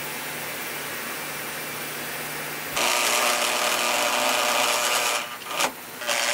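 Power drill running as it bores into a pine board, starting about three seconds in. It stops briefly, gives one short burst, then runs again near the end.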